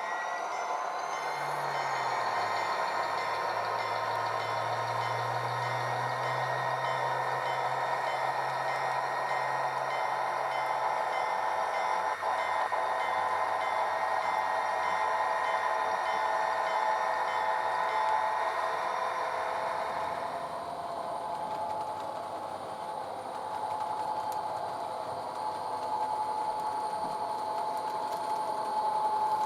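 HO scale model diesel locomotives with ESU LokSound decoders running on the layout, their small speakers playing EMD diesel prime mover sound over the whine of the motors. About 20 s in, the sound thins to a steady whine.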